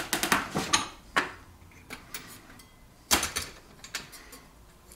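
Short clusters of metal clicks and scrapes as the steel stovepipe collar with its damper is handled against a bench vise. The loudest come at the start and about three seconds in, with a smaller one at about one second.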